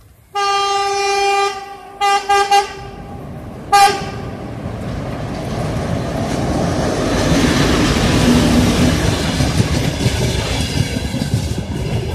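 TEP70-series diesel locomotive sounding its horn: one long blast, then a quick run of short blasts and one more short toot. It then passes close by with its passenger coaches, the rumble of the engine and wheels growing louder.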